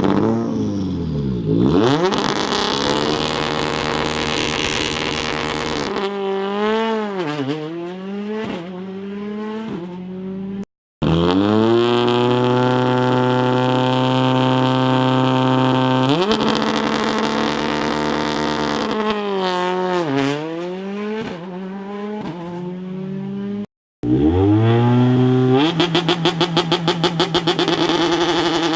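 Rally car engines revving hard on the start line, held steady at high revs, then pulling away with the pitch sweeping up and falling through gear changes, repeated over several departures. Near the end one engine stutters rapidly while held at high revs.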